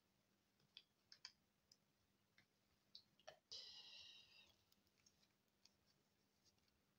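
Near silence with faint, scattered clicks and taps of hands handling small embroidery floss cards, and one short rustle a little past halfway.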